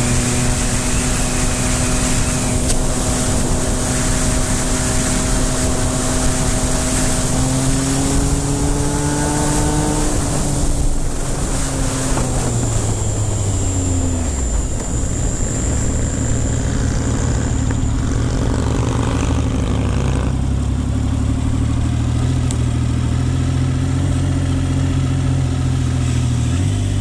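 Triumph Speed Triple 955i's three-cylinder engine running under way, with wind noise. Its pitch rises a little about eight seconds in, falls off between about twelve and fifteen seconds in, then holds at a lower steady pitch.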